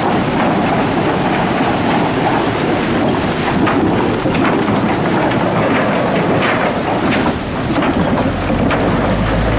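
Motorcycles and a Peugeot saloon rolling slowly over a wooden-plank bridge deck, the loose planks clattering under the tyres with many small knocks over the running engines.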